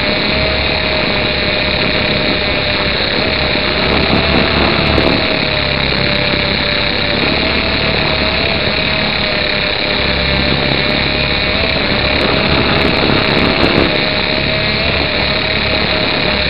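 Modelco Metal Cop RC helicopter's motor and rotors running in flight, heard close through its onboard keyring spy camera: a loud steady whine with a held tone that wavers slightly in pitch, swelling briefly twice.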